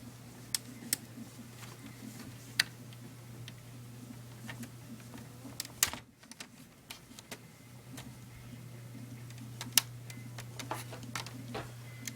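Plastic laptop screen bezel being pried away from the lid, its clips popping loose in sharp scattered clicks, over a steady low hum.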